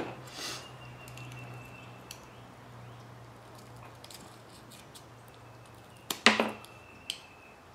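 Pliers cutting through an ESC's motor wire: one sharp snip about six seconds in, with a lighter click about a second later, over a faint low hum.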